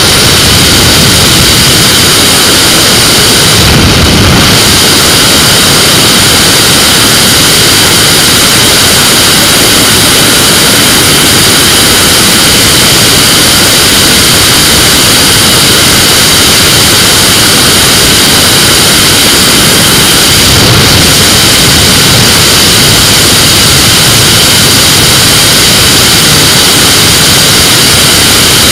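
Flexwing microlight's engine and propeller droning steadily and loudly in flight, mixed with heavy wind noise on an onboard microphone. Two brief louder swells, about four seconds in and again about twenty-one seconds in.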